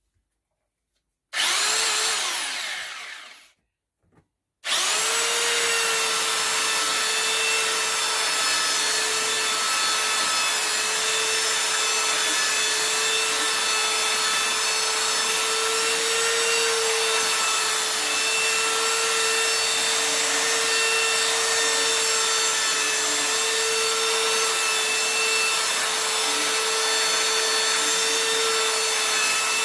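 Parkside PBSD 600 A1 belt sander switched on briefly and let run down, then started again about four and a half seconds in. It then runs steadily with a constant whine, sanding rough timber with the dust collector fitted.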